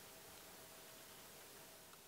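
Near silence: room tone, a steady faint hiss with a faint steady tone underneath.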